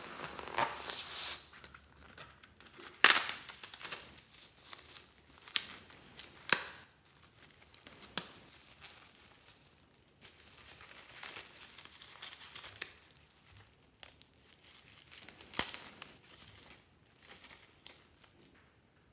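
Scissors snipping into a rubber balloon, then the thin balloon rubber tearing and crinkling as it is peeled off a filling of slime and foam beads, with several sharp snaps scattered through.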